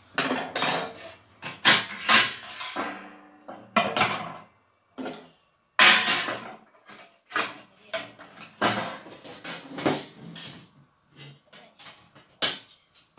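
Metal clanking and rattling as a tubular oven heating element is fitted onto its sheet-metal mounting plate: repeated sharp knocks at uneven intervals, some with a short ring.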